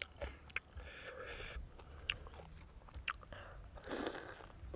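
A person biting into and chewing roast duck close to the microphone: scattered short mouth clicks, with a longer stretch of tearing and chewing about a second in and again about four seconds in.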